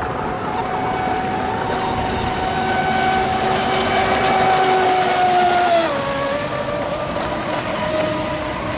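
Radio-controlled speedboat running flat out, a steady high whine with the hiss of its spray, getting louder as it passes close. About six seconds in the whine drops sharply in pitch and runs on lower.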